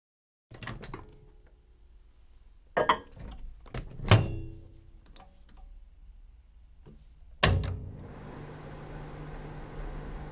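Microwave oven being loaded: latch clicks, knocks and a loud thunk as its door is opened, something is put in and the door is shut, then a few small clicks of the controls. About eight seconds in a sharp click starts the oven, and it runs with a steady hum and a faint high whine.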